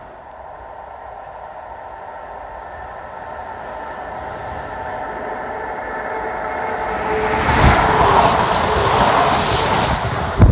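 A multiple-unit passenger train approaching and passing close by. Its hum and rail noise grow steadily louder until it rushes past about seven and a half seconds in, with a few sharp wheel clicks on the rails as the cars go by.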